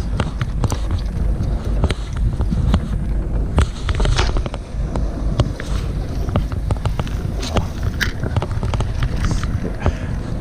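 Fishing boat at sea: a steady low rumble of the boat underway with wind buffeting the microphone, and irregular knocks and clicks scattered throughout.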